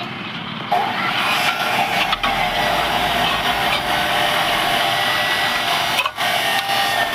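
Metal being cut for a 45-degree joint: a steady, harsh, hissing cutting noise that starts just under a second in, with a brief break near the end.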